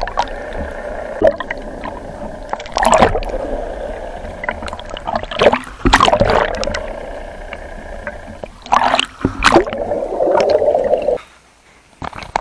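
Water gurgling and sloshing around an underwater camera, over a steady hum, with loud splashing surges every few seconds. It cuts off suddenly about eleven seconds in.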